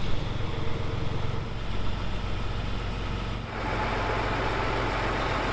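Large John Deere articulated four-wheel-drive tractor's diesel engine running steadily at low speed as it is parked. About three and a half seconds in, the engine note turns brighter and a little louder.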